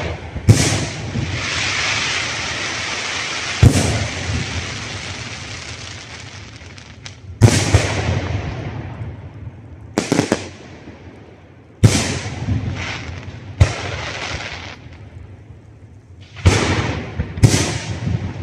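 Aerial firework shells (spherical shells) bursting overhead: about nine sharp booms a second or more apart, some in quick pairs, each trailing off into crackling and hiss as the stars burn out.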